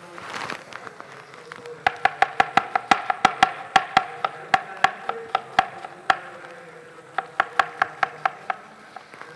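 Chef's knife chopping onion finely (brunoise) on a cutting board: quick, sharp knocks about four a second, then a short pause and a second shorter run near the end.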